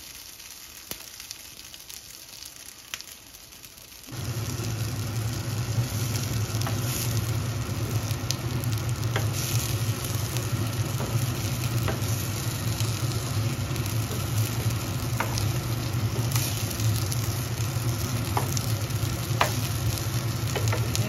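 Shami kababs frying in oil on an iron tawa, sizzling. The sound is faint at first, then turns suddenly louder about four seconds in. A steady low hum joins it there, with scattered sharp ticks throughout.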